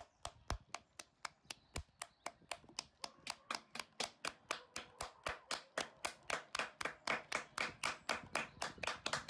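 One person's hands clapping steadily and fast, about five claps a second, growing a little louder towards the end.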